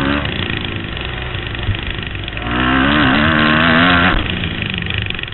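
Kawasaki KX250F four-stroke single-cylinder motocross engine, close up from an onboard camera, running under throttle. About two and a half seconds in it revs hard and loud for over a second with a wavering pitch, then drops off abruptly.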